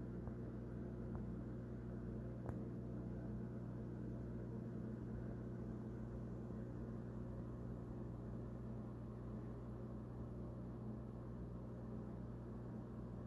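Steady low electrical hum with a faint hiss above it and one faint click about two and a half seconds in.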